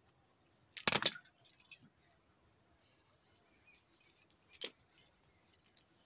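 Bangles on the wrists jingling and clinking as the arms move: one sharp jingle about a second in and another shortly before the five-second mark, with small handling clicks between.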